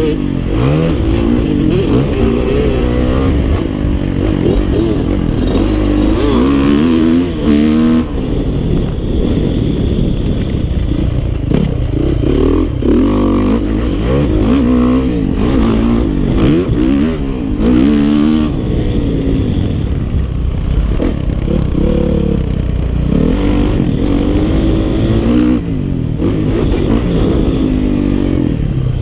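Dirt bike engine being ridden hard, its pitch rising and falling again and again as the throttle is opened and closed and it shifts through the gears.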